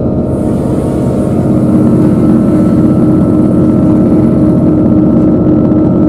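Passenger train running, heard from inside the carriage: a steady hiss and rumble, set over a sustained ambient music drone of held tones.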